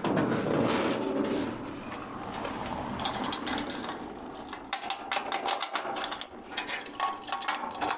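Ratchet of a cargo tie-down strap clicking in quick runs from about three seconds in, after a second or so of handling noise.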